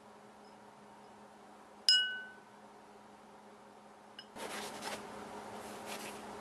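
A forged steel knife blade clinks once against a glass of ferric chloride etchant, and the glass rings briefly. Near the end a paper towel rustles as it wipes the blade.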